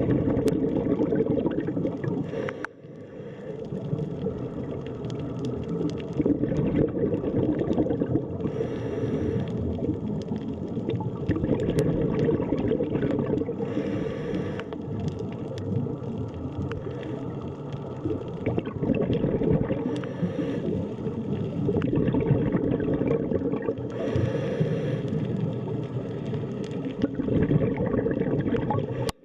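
Underwater ambience: a steady, low gurgling rumble of water, with a brief brighter hiss about every five seconds.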